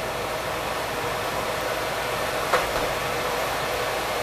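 Hush puppies deep-frying in hot oil: a steady sizzle with a sharp pop about two and a half seconds in.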